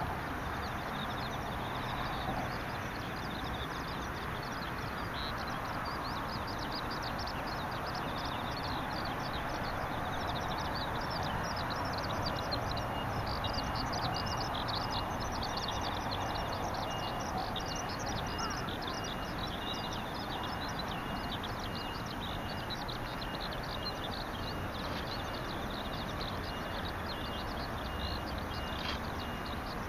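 Birds and insects calling: dense, rapid high chirping through most of the stretch, with a regular pulsing insect-like trill joining about a third of the way in, over a steady background noise.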